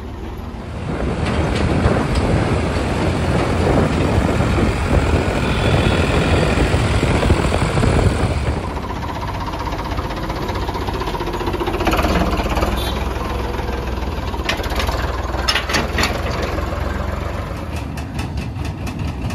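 Ford 3600 tractor engine running as the tractor drives along the road, louder for the first half, then steadier after a change about halfway through, with a few sharp clicks near the end.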